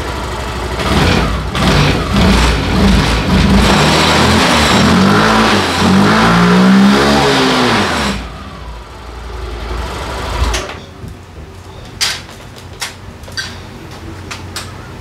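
Yamaha NMAX125 scooter's single-cylinder engine revving up and back down several times, its pitch gliding, with the newly fitted CVT pulley set and belt. About eight seconds in it drops to quieter running, with a few sharp clicks near the end.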